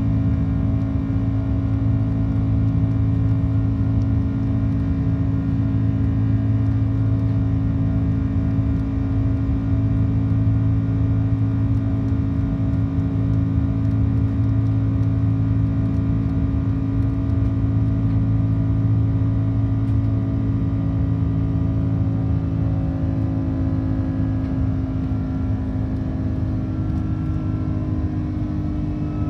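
Cabin noise of a Cathay Pacific Airbus A330-300 climbing after takeoff. Its Rolls-Royce Trent 700 turbofans make a steady loud drone, a low hum with several held tones, and the tones shift slightly in pitch near the end.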